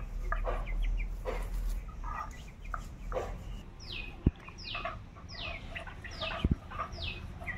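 Domestic hens clucking in short irregular calls. From about four seconds in, another bird repeats a short falling note roughly every half second, and two sharp knocks stand out.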